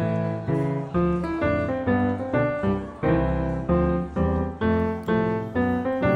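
Background music: a piano playing a steady run of evenly struck notes, about two or three a second.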